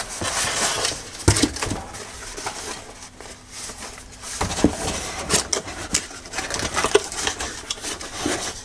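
Cardboard packaging being handled: a carton's inner cardboard pieces and a small box slid and lifted out, with rustling and scraping and a few sharp knocks, the loudest about a second in and around four and a half to five and a half seconds in.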